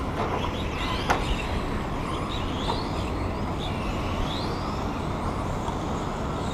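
Radio-controlled cars racing: short rising whines from their small electric motors over a steady traffic-like background noise, with a sharp click about a second in.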